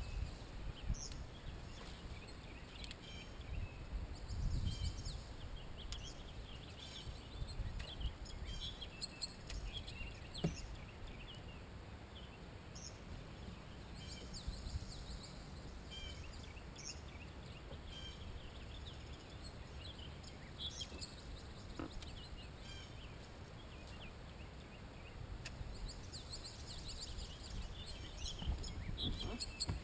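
Several songbirds chirping and trilling in short phrases, over a faint low rumble.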